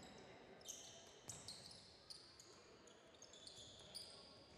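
Faint basketball game sounds on a hardwood court: a ball bouncing, and several short, high-pitched sneaker squeaks as players cut and stop.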